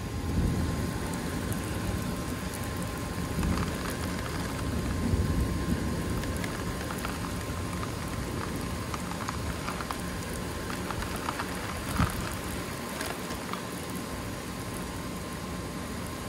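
Steady downpour of heavy rain on the street and roofs. Low rumbles of thunder swell in the first second and again a few seconds in, and there are scattered drip ticks and one sharp tap about twelve seconds in.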